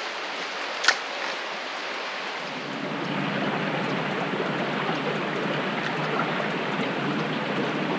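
Pine River water rushing steadily, a noisy hiss that gets fuller and a little louder about two and a half seconds in. A single sharp click about a second in.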